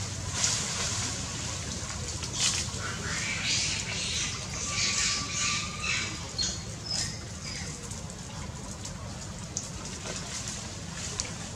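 A macaque splashing and rustling as it climbs from muddy water onto a branch: irregular bursts of splashing over a steady low rumble, with a few short high squeaks around the middle.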